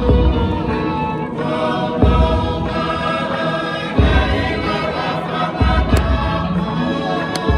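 Group of voices singing a Tongan tau'olunga song in harmony, with a deep thump about every two seconds.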